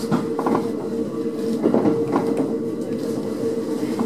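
A JR East three-car electric multiple unit running, heard from inside the train: a steady rumble with a constant humming tone, and a few short clicks.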